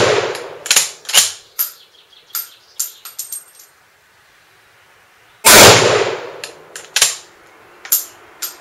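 Swiss K31 straight-pull rifle in 7.5x55 Swiss: a shot's report dying away at the start, then the straight-pull bolt worked back and forward with a quick run of sharp metallic clicks. A second shot goes off about five and a half seconds in, followed again by the clicks of the bolt being cycled.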